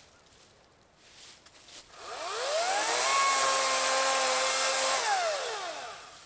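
Ryobi 14-inch 40V battery chainsaw's electric motor spinning up to a steady high whine on one trigger pull, held about two seconds, then winding down. The chain is mounted backwards, so the saw isn't cutting.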